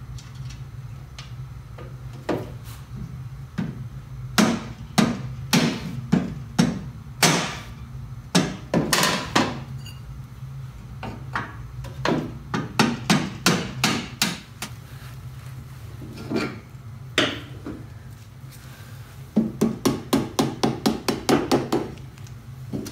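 Soft-faced mallet striking a drift to drive out a motorcycle's rear swingarm pivot spindle. The blows come in irregular bunches, ending in a quick run of about ten blows near the end.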